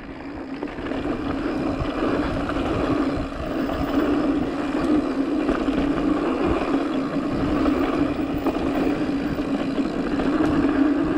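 Mountain bike rolling fast down a dirt trail: the knobby tyres run over the ground with a steady hum under a rough rush of wind on the microphone and small bumps and rattles.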